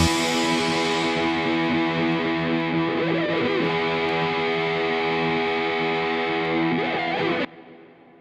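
Distorted electric guitar chord left ringing, then cut off abruptly near the end, leaving a brief fading tail.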